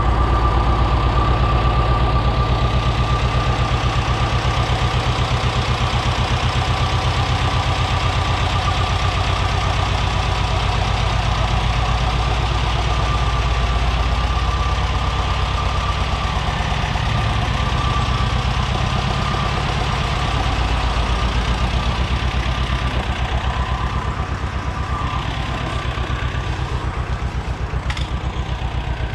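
Farm tractor's diesel engine running steadily, at work clearing out manure from the barn, with a thin steady high whine over it.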